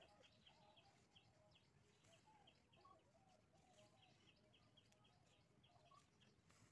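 Near silence with faint bird chirping: rapid short high chirps repeating throughout, with a few lower warbled notes.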